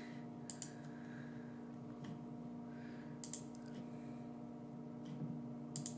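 A few soft clicks at a computer: one soon after the start, a quick cluster a little past halfway, and one near the end. A steady low electrical hum runs under them.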